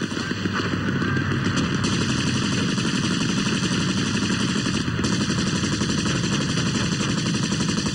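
Dense, continuous gunfire: machine guns and rifles firing rapidly without a break, the shots running together.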